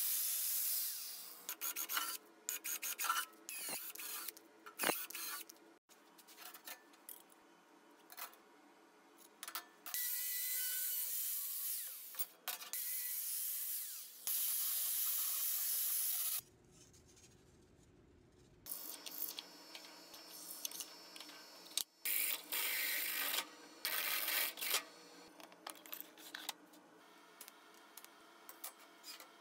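Handheld angle grinder working sheet steel in repeated short passes. Each rushing grind lasts a second or two, with a longer run near the middle, and quieter gaps and clicks fall between them.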